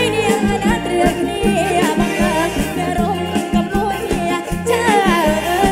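Live kantrum band playing an upbeat song with a steady drum-kit beat, a woman singing over it.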